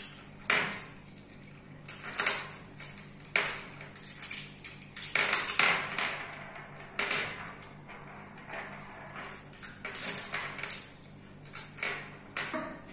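Glass marbles clicking and clinking against one another as hands squeeze them together inside a lump of sticky slime, with soft squelching from the slime. The clicks come irregularly, in clusters.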